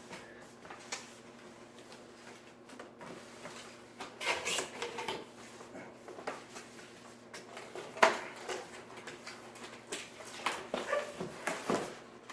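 Cardboard and plastic packaging being handled: rustling, scraping and small knocks, with one sharp knock about eight seconds in.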